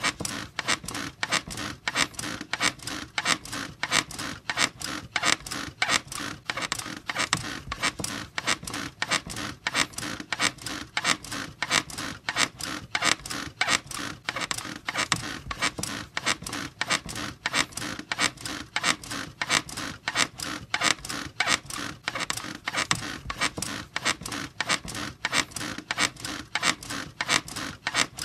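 A bed squeaking over and over in a steady, quick rhythm, several squeaks a second.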